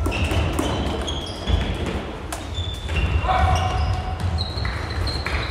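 Floorball play echoing in a large sports hall: players' shoes squeaking on the court in short high chirps, several sharp clacks of sticks and plastic ball, and players calling out.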